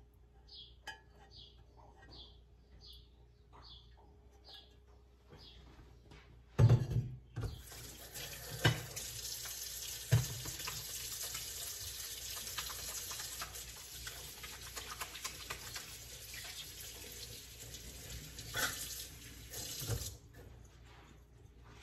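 Kitchen faucet running water steadily for about twelve seconds. It starts after a couple of loud knocks about six seconds in and stops with another knock near the end. Before it there are a few faint light ticks.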